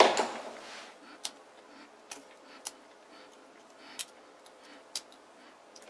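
Small sharp clicks, about five spread over several seconds, as a desoldered rotary potentiometer is worked open by hand, its housing being pried apart to clean it. A brief handling noise comes at the start.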